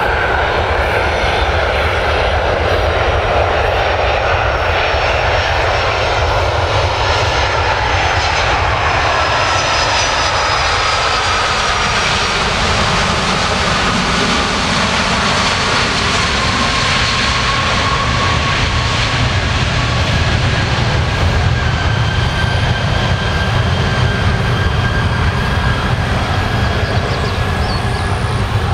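Boeing 767-300's General Electric turbofan engines running hard in reverse thrust during the landing rollout: a loud, steady jet rush with thin high whines that drift in pitch. A deeper rumble fills in about halfway through.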